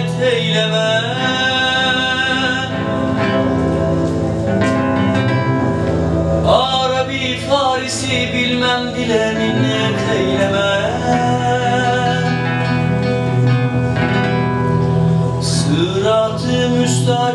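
Live song: a young man's voice singing over strummed acoustic guitars.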